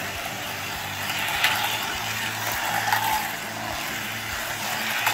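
Hot Wheels electric slot cars running around a plastic track: a steady whir of small electric motors and wheels on the track, with a brief rise and fall in pitch about three seconds in as a car goes by.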